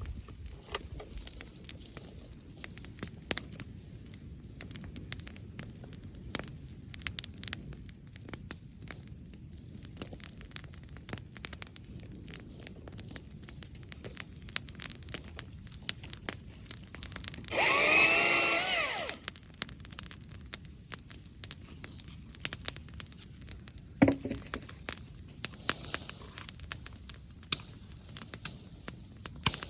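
Wood bonfire crackling, with irregular sharp pops. About two-thirds of the way through comes one loud burst of about a second and a half whose pitch rises and falls, and a sharp knock follows a few seconds later.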